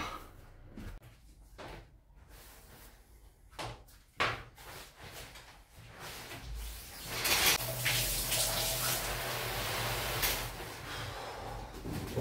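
Shower running in a bathtub: a steady rush of water starts about six and a half seconds in and keeps on. Before it, a couple of knocks.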